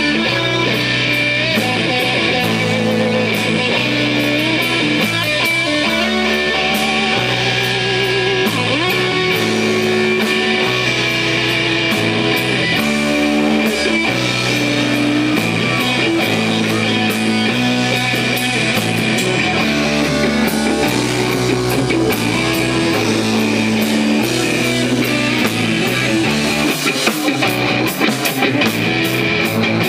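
Rock band playing live at a steady loud level, electric guitar and drum kit over a bass line that steps between low notes every second or so.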